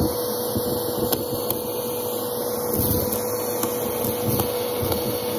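Bagless upright vacuum cleaner running steadily with a constant hum. Its hose and crevice tool suck up clumps of matted grey fluff from the carpet.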